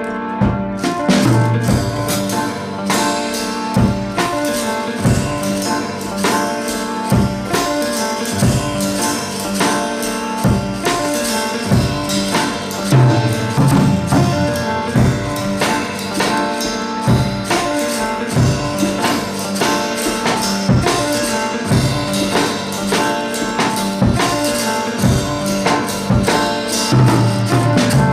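Background music: an instrumental stretch of a song with drums, tambourine and a steady beat.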